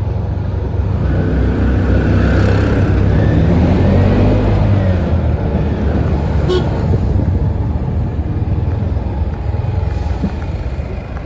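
Road traffic: a steady rumble of vehicle engines and tyres, with one vehicle's engine swelling louder in the first few seconds and then fading as it passes. A brief high beep comes about halfway through.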